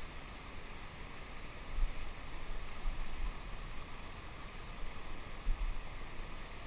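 Steady rushing of river water over rocks, an even hiss with no rhythm, broken by a couple of low thumps about two seconds and five and a half seconds in.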